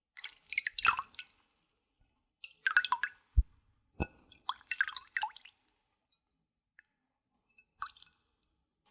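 Water splashing and dripping in short bursts as hair is wetted with well water by hand, with a dull thump about three and a half seconds in and a few faint drips near the end.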